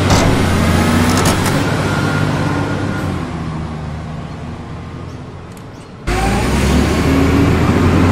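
Sound effect of a heavy vehicle's engine running with a steady low hum. It fades out over a few seconds, then an engine sound comes back abruptly and loud about six seconds in.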